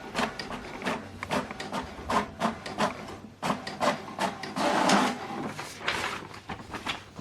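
HP DeskJet 4220e inkjet printer printing its Wi-Fi Direct information page: the paper feed and print carriage clicking and shuttling, with a louder rush of noise about halfway through.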